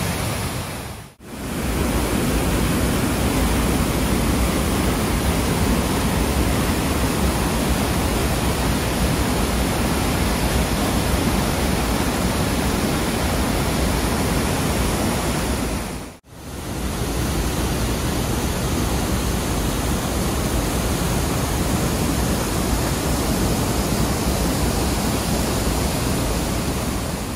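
Gunlock Falls: overflow from Gunlock Reservoir pouring over sandstone ledges in a loud, steady rush of white water. The rush drops out briefly twice, about a second in and about halfway through.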